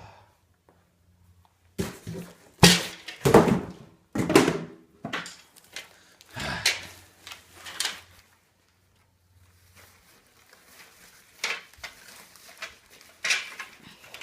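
Plastic knee hockey gear being unpacked and handled: a series of irregular knocks and clatters, some ringing briefly, loudest in the first half and again a few times near the end.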